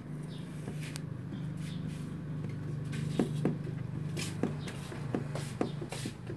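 Kitten suckling at a dog's teat: short wet clicks and smacks from its mouth, coming more often in the second half, over a steady low hum.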